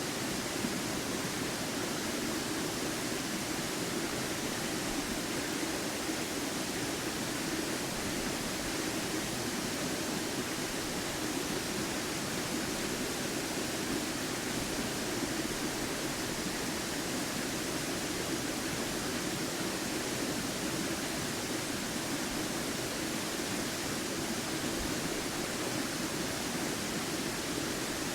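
Waterfall rushing, a loud, steady, unbroken noise with its weight in a low rumble.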